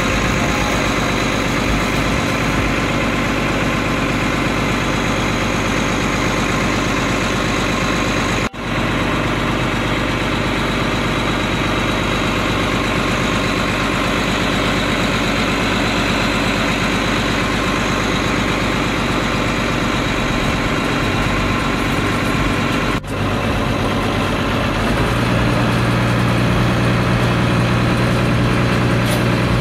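Freshly overhauled Dongfeng Cummins 6CTAA8.3 inline-six turbo diesel running at a steady idle on its test run. The sound cuts out briefly twice, and a deeper steady hum joins near the end.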